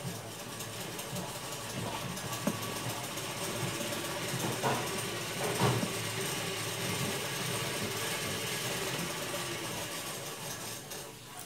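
A small motor running steadily, with a few light knocks, the loudest about halfway through.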